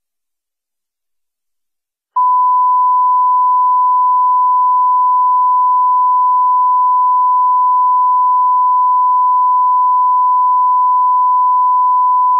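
A single loud, steady electronic beep tone, used as an emergency-alert attention signal, switches on abruptly about two seconds in after dead silence. It holds one unchanging pitch with no wavering.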